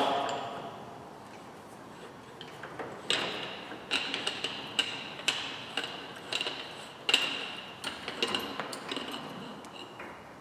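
A string of irregular light metallic clicks and clinks, each with a brief ring, from metal parts being handled while injector cleaner is set up in a pressurized fuel-injector cleaning tool. The clicks start about three seconds in and come in uneven clusters.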